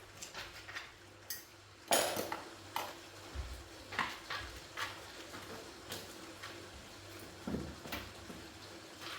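Irregular metallic clinks and knocks of tools and metal parts being handled during repair work, the loudest a clank about two seconds in.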